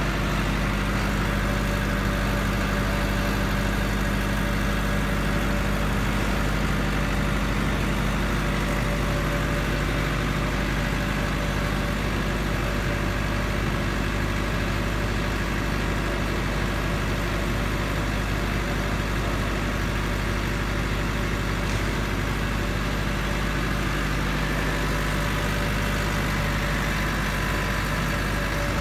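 A 10 kW diesel generator set running steadily under load from a load bank, its soundproof canopy doors open. It keeps an even engine note with no change in speed or level.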